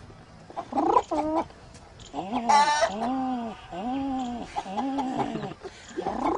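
A man imitating a pigeon with his voice: a short, high call, then a run of low, arched cooing notes.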